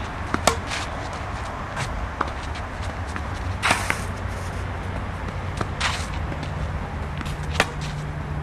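Tennis rally on a clay court: rackets strike the ball with a sharp pop every few seconds, the loudest about half a second in and again near the end, with brief scuffing of shoes on the clay between hits. A steady low hum runs underneath.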